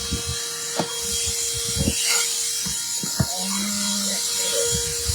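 Handheld car vacuum cleaner running with a steady motor hum and airflow hiss, with several knocks and bumps as it is handled against the car's interior.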